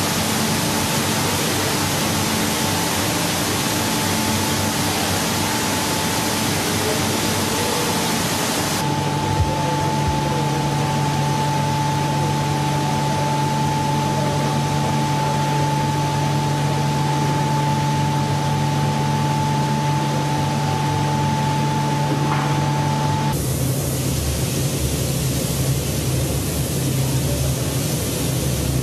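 Steady mechanical hiss with a low hum and a faint whine, typical of factory machinery running. The mix changes suddenly about a third of the way in and again near the end.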